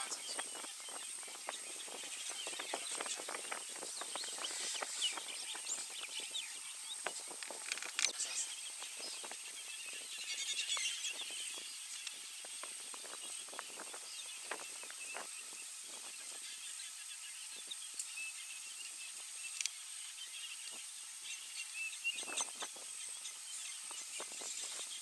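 Outdoor bush ambience: birds chirping now and then over a steady high hiss, with many short crackles and rustles scattered throughout.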